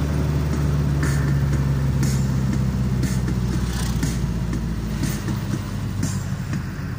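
Car engine running while driving, heard from inside the cabin: a steady low hum with road noise and a few faint rattles. The hum eases slightly near the end.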